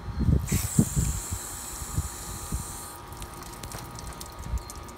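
A hand-held spray nozzle hisses steadily for about two and a half seconds over soapy rubber roof molding, then cuts off suddenly. A few handling knocks come near the start.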